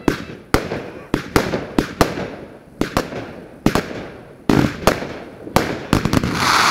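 Fireworks going off in quick succession: an irregular string of sharp bangs, about two a second, with a louder hissing burst near the end.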